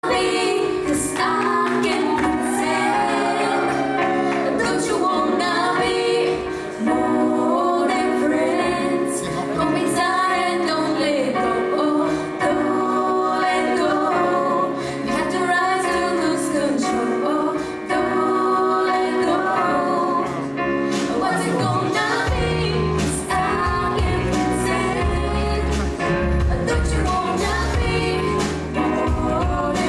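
A live band playing with a woman singing lead into a microphone. Heavy low bass comes in about two-thirds of the way through.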